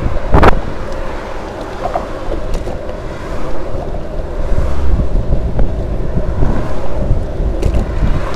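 Wind buffeting the microphone of a handlebar-mounted camera on a moving bicycle: a loud, steady low rumble that swells and eases.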